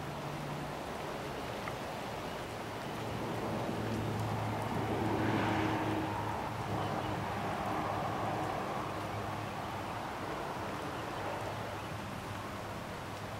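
Steady hiss of rain with the low drone of a passing engine that swells to its loudest about five or six seconds in and then eases off.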